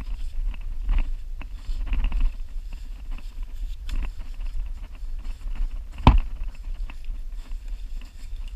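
Wind rumbling on the microphone, with scattered small clicks and scrapes of gloved hands working in wet sand, and one sharp knock about six seconds in.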